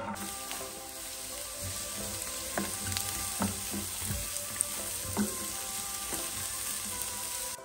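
Chopped vegetables frying in hot oil in a pan, a steady sizzle, with a few light knocks as they are stirred.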